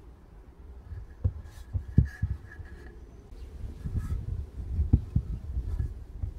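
Handling noise from a small wooden shelf being turned over in the hand close to the recording phone: low rumbling with a few dull thumps, about a second in, around two seconds, and near five seconds.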